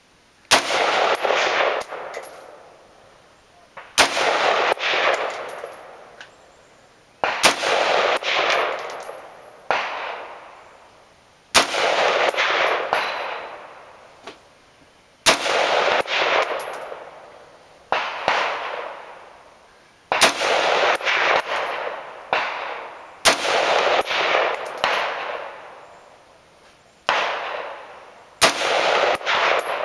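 AR-15 rifle firing a dozen or more single shots, semi-automatic, spaced one to three seconds apart and sometimes in quick pairs. Each crack has a long echoing tail that fades over a second or two.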